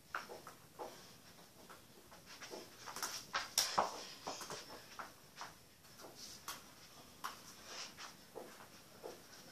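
Irregular soft knocks and taps from a football being touched and kicked by bare feet, with footsteps on the floor; the busiest cluster comes about three to four seconds in.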